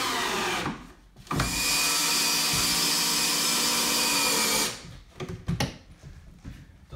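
Makita cordless drill-driver driving a screw at an angle through the top of a wall stud (toenailing). There is a short run of the motor, a brief pause, then a steady run of about three and a half seconds. A few light knocks follow as the drill is handled.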